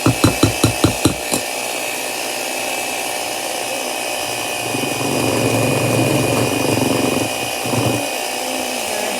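Electric hand mixer running steadily in cake batter. About seven quick knocks come in the first second and a half, and the motor sound grows heavier about halfway through.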